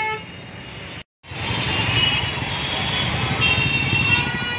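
Dense city-street traffic: motorbikes and cars running together, with horns sounding now and then. It starts after a brief silent gap about a second in.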